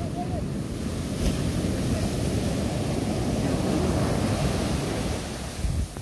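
Heavy surf breaking and washing up the beach in a steady rush, with wind buffeting the microphone. It swells in the middle and eases off shortly before the end.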